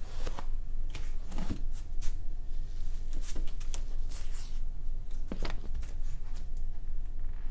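Scattered small clicks and rustles of things being handled on a table, with a brief swish about four seconds in, over a low steady hum.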